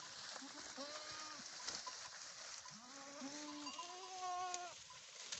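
Goats bleating: one call about half a second in, then several overlapping calls between about three and four and a half seconds, the last one higher-pitched.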